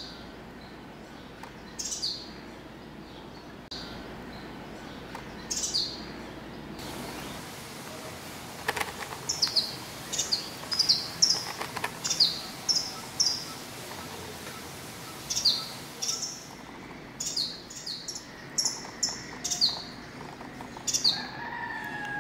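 Purple-banded sunbird calling: short, high chirps that slide downward, a few scattered ones at first, then quick runs of several, over steady background noise.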